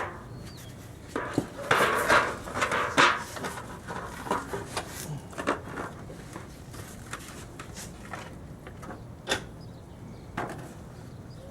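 Scattered knocks, clunks and clatter from handling the lawn mower and its oil drain pan during the oil drain, busiest about two to three seconds in.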